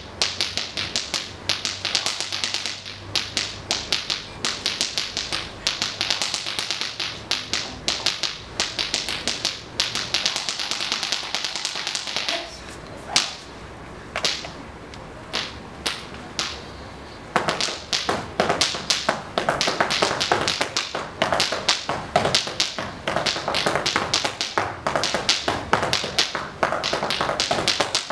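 Malambo zapateo: rapid, rhythmic foot stamping and heel-and-toe strikes on a dance floor. About halfway through the footwork breaks off into a few single strikes for several seconds, then resumes fast.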